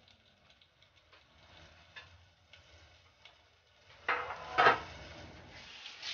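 Faint, scattered clicks and ticks of kitchen cookware, then a louder clatter with a rustling noise about four seconds in that fades over the next second or so, and a short burst again at the very end.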